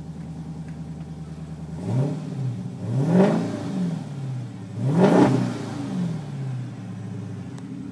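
Chrysler 300 SRT8's Hemi V8, heard from inside the cabin, idling steadily and then revved three times: each rev rises and falls back to idle, the last two higher than the first.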